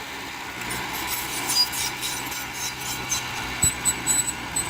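Heavy earthmoving machinery running, with a steady engine drone under rough, rasping scraping noise and a few sharp knocks, one a dull thump near the end.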